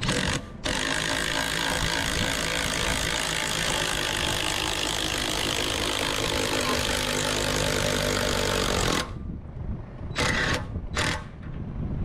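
Cordless drill driving the screw of a homemade bead breaker to push a tractor tire's bead off the rim. A short burst, then about eight seconds of steady running, then two short bursts near the end.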